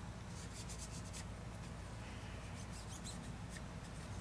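Faint scratching and rustling of a cloth cleaning patch rubbed and handled by fingers, in short, irregular strokes over a low, steady hum.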